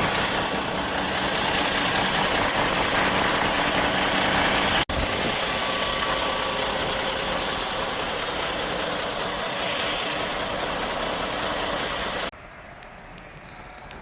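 Road train truck running as it pulls away: a steady engine hum under a wide hiss of engine and road noise. The sound cuts out for an instant a little under five seconds in, and about twelve seconds in it drops suddenly to a much quieter level.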